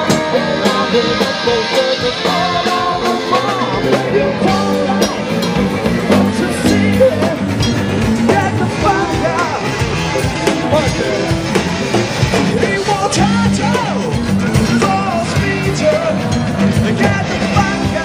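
Live rock band playing a song with singing, electric guitar, bass and drums.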